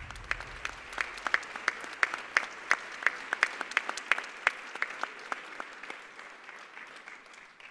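Audience applauding in an auditorium, with many separate claps standing out, fading away toward the end.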